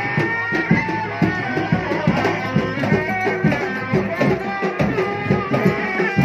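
Sundanese reak ensemble music: fast, dense drumming with a high melody line stepping over it.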